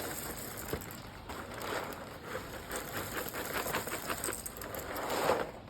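Dry Crispix cereal pouring from the box onto a Blackstone griddle's steel top: a quick patter of many small pieces landing and rattling, growing denser near the end before it stops.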